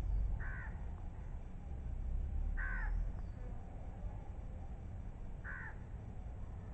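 A crow cawing three times, a couple of seconds apart, over a low steady rumble.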